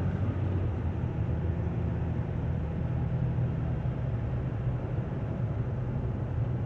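Steady low hum of a car, heard from inside the cabin.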